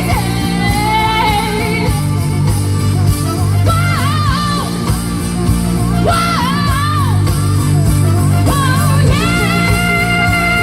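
Pop-rock band music with a woman singing wordless, bending vocal runs over it, settling into one long held high note near the end.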